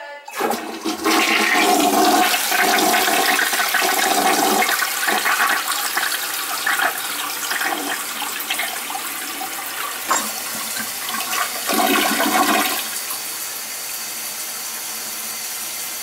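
Toilet flushed with its tank handle, run as a test flush after fitting a new wax ring: a click of the lever, then a loud rush and gurgle of water swirling down the bowl for about twelve seconds. Near the end it settles into a quieter, steady hiss of refilling.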